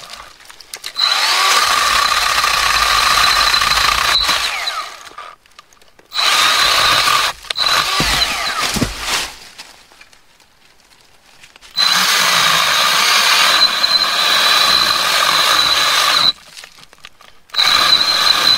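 Milwaukee M12 Fuel Hatchet cordless pruning saw cutting through a limb about 3 inches thick, its motor and chain whining steadily in four runs with stops between. The stops fit the saw halting mid-cut, which the owner guesses is the battery cutting out in the cold.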